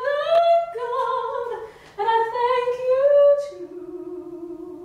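A woman singing unaccompanied: a slow melody of long held notes that glide from one to the next, ending on a lower note held for about a second.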